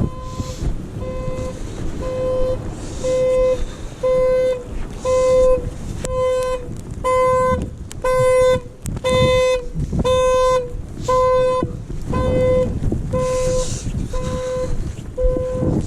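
Vehicle alarm sounding a steady train of short honking beeps at one unchanging pitch, about one and a half a second, louder in the middle of the stretch, with wind noise on the microphone.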